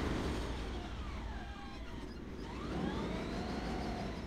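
New York subway train pulling out of the station: a steady low rumble with the electric motors' whine, several pitches that dip in the middle and then rise again.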